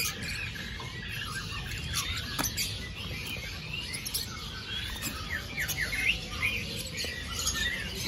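Caged songbirds chirping: scattered short, high chirps and quick rising notes, with a brief cluster of rising notes around six seconds in.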